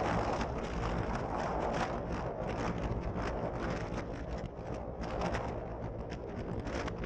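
Wind buffeting the microphone of a Polaris RZR 900 side-by-side as it drives across sand, with the vehicle's running noise underneath.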